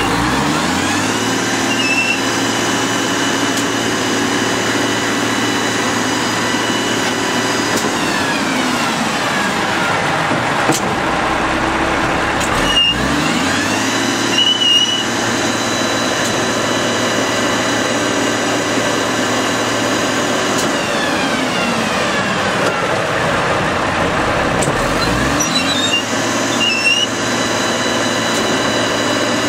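A WhiteGMC garbage truck's Cummins L10 inline-six diesel revs up and holds at high speed while the side-load compactor cycles. It drops back to idle and revs up again, three rises in all, with a few short squeaks from the packer.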